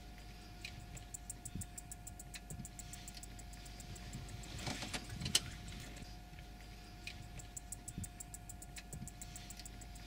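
Faint background noise: a steady low rumble and a thin steady hum, with runs of rapid high ticking and one sharp click about five seconds in.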